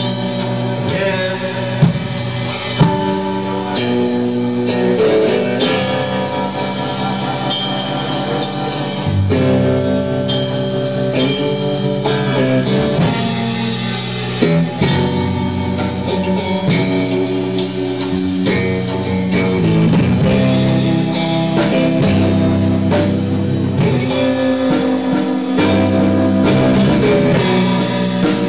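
Live band performance: electric guitars and a Yamaha drum kit playing a song together, with chords and notes changing throughout and a steady drum beat.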